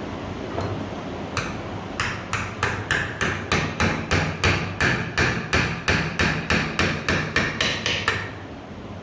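Hammer striking metal during a water pump bearing and seal repair: one blow, then a steady run of about twenty quick blows at roughly three a second, each with a short ring, stopping about a second before the end. A steady background hiss runs underneath.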